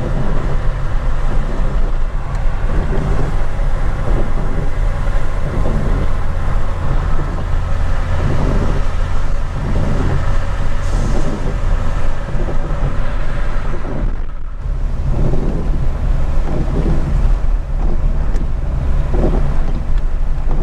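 Car cabin noise while driving on a rain-soaked highway: a steady low rumble from engine and tyres with wet-road tyre hiss, and the windshield wipers sweeping.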